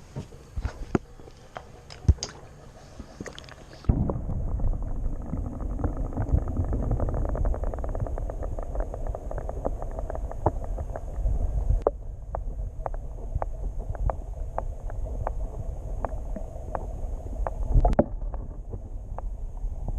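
Action camera in its waterproof housing going underwater. First come a few knocks of handling; about four seconds in, the sound turns to a muffled underwater rumble. A run of fast clicks rides on the rumble and thins out to scattered ticks after about twelve seconds.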